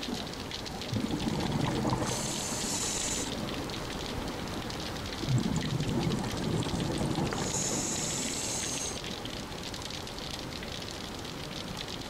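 Underwater sound of a scuba diver breathing through a regulator: a burst of bubbling exhaled air followed by a hissing inhale, twice, about every five and a half seconds.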